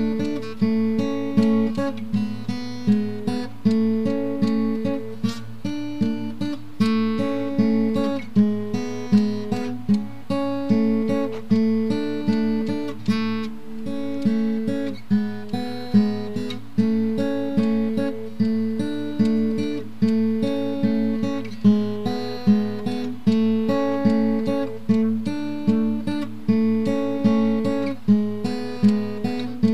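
Background music: a plucked acoustic guitar playing a steady, repeating pattern of notes.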